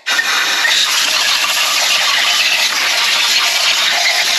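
Compressed-air blow gun with a long extension nozzle hissing steadily as it blows grinding dust out of the valve ports of freshly reworked aluminium cylinder heads.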